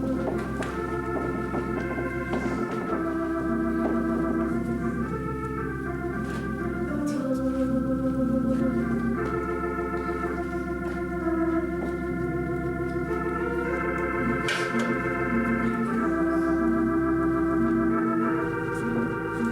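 Organ playing slow, sustained chords that change every second or so over held bass notes, with a wavering tremolo.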